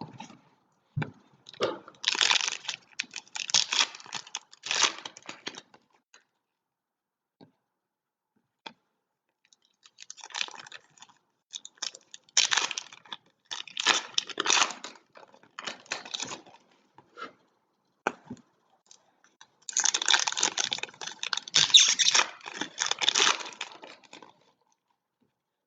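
Foil trading-card pack wrappers being torn open and crinkled, in three bouts of crackling with short pauses between.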